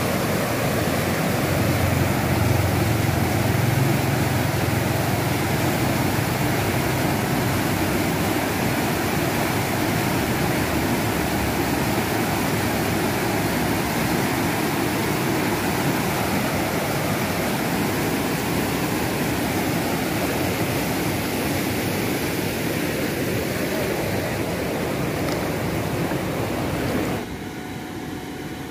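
Fast, shallow river water rushing steadily over the riverbed. Near the end the sound drops suddenly to a much quieter background.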